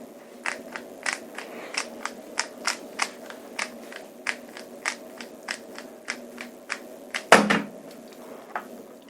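Qiyi MS magnetic 3x3 speedcube being turned by hand, repeated R prime and U prime moves done without finger tricks, its layers clicking about three to four times a second. A louder knock comes about seven seconds in, and a faint steady hum runs underneath.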